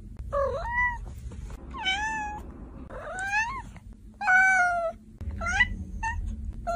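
Ragdoll cat meowing repeatedly: about six short, high-pitched meows that rise and fall in pitch, with brief pauses between them.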